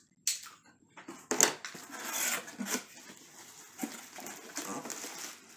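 Cardboard shipping box being handled and its flaps pulled open, with scraping and rustling and a few sharp knocks, the loudest about a second and a half in.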